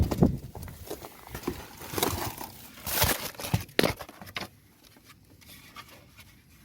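Irregular knocks, scrapes and rustling of a plastic cooling fan assembly being handled as the new one is taken out. It is busiest in the first four seconds and dies down to faint handling noise after that.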